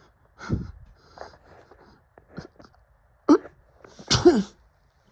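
A person building up to a sneeze with short breathy catches, then a sharp intake and a loud sneeze near the end.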